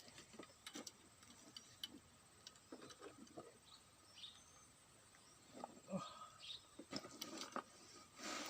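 Faint scattered clicks and taps of fishing tackle being handled and set up, with a few bird chirps in the background.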